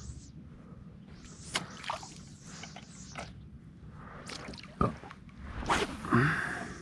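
Water splashing and trickling beside a fishing kayak, with several sharp knocks and clatters. The loudest splash comes near the end.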